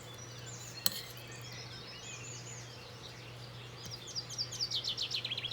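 Small birds chirping in quick runs of short sweeping notes, busiest near the end, over a steady low hum, with one sharp click about a second in.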